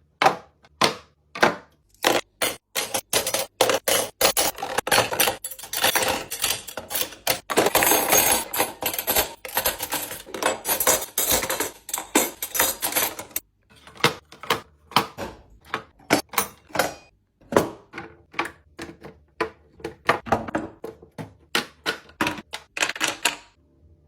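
Rapid clicking, tapping and clattering of hard objects being handled and set down, dense in the first half and thinning to separate taps later.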